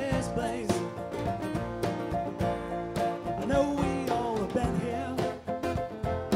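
Live band music: guitars playing over a steady drum beat, with sliding melodic lines and no sung words.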